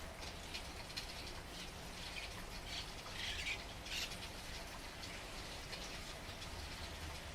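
Steady rain with scattered drops and drips tapping, over a low steady rumble, with a brief louder patch of higher sound about three seconds in and another about a second later.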